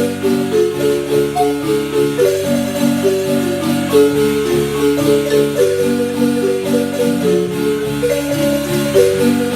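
Marimba music: several notes sounding together over a bass line, played continuously.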